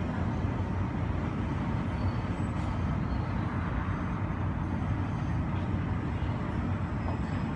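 Steady, muffled low rumble of airport apron noise heard through the terminal window glass, with faint high whines above it. It takes in the jet engines of a taxiing airliner.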